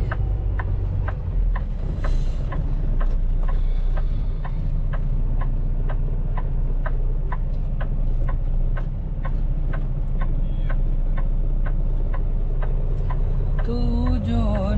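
Kenworth T680 semi-truck driving, its engine and road noise heard as a steady low rumble inside the cab. An even clicking, about three clicks a second, runs over the rumble.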